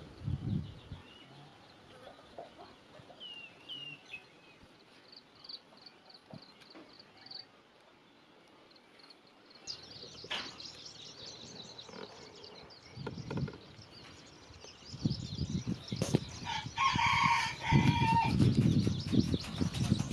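A rooster crowing once near the end, with a few faint bird chirps earlier.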